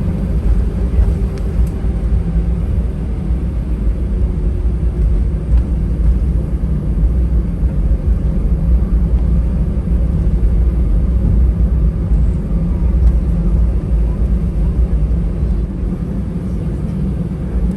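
Cabin noise inside an Airbus A319 taxiing after landing: a steady low rumble of the idling jet engines and the rolling airframe.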